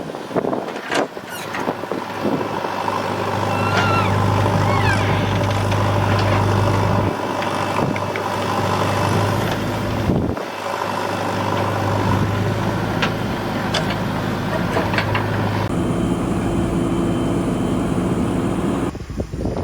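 Heavy diesel engines of earthmoving machinery running steadily under load. The engine note shifts abruptly a few times, and a few short high squeaks come a few seconds in.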